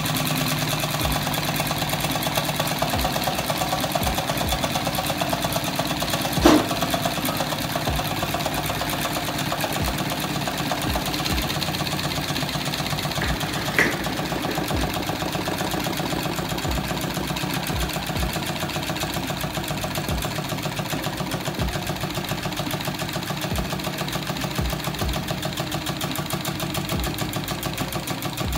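Homemade tin-can Stirling engine running steadily on a camping sterno, its wire crank linkage and flywheel clattering in a fast even rhythm as it turns a small generator. A single sharp click about six and a half seconds in.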